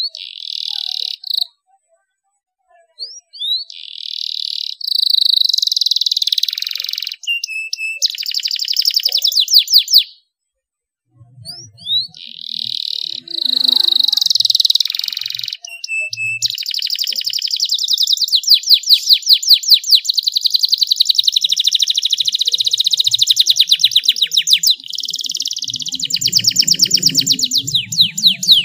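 Male domestic canary singing a long rolling song: fast trills and held warbling notes, high-pitched. It breaks off briefly twice in the first half, then runs on without a break.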